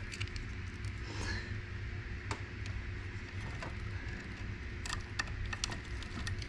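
Faint, scattered clicks and taps from hands fitting a small plastic hobby servo into a pen-lift bracket, with a small screwdriver and the servo's wires in hand, over a steady low hum.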